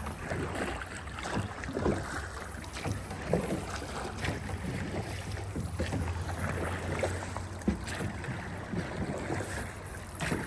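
Water splashing and sloshing around a drift boat on a river, with many small irregular splashes, over a steady low rumble of wind on the microphone.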